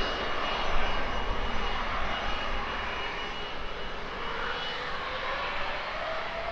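Twin rear-engined business jet touching down and rolling out on the runway: a steady jet engine rush with a thin high whine that stops about four and a half seconds in.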